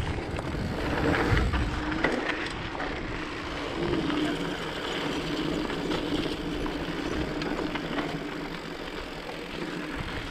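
Mountain bike rolling along a dirt trail: steady tyre and drivetrain noise with scattered small knocks and rattles.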